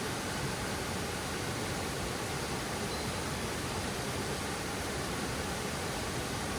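Steady rush of falling water from a waterfall: an even noise at a constant level, with no breaks.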